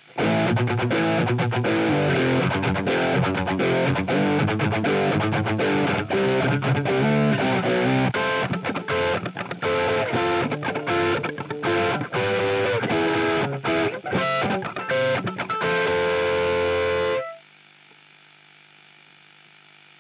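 Distorted electric guitar playing fast riffs through revived dead EMG active pickups, each fitted with a DIY preamp, into an amp simulator. The playing ends on a held chord that cuts off sharply about 17 seconds in. A steady hum and hiss is left behind, the poor signal-to-noise of the revived pickups.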